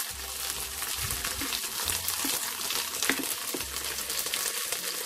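Chicken wings, shallots, ginger and garlic frying in oil in a wok: a steady sizzle with fine crackling.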